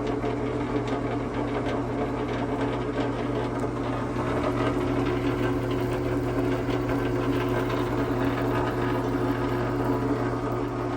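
Drill press running steadily, its bit cutting through a metal pin lubricated with cutting oil.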